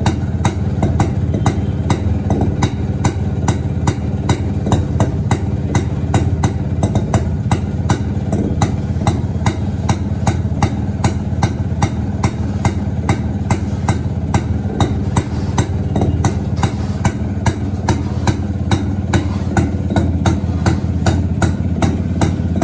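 A 1986 Yezdi Roadking's 250cc single-cylinder two-stroke engine idles steadily. Sharp regular pops come through about three times a second.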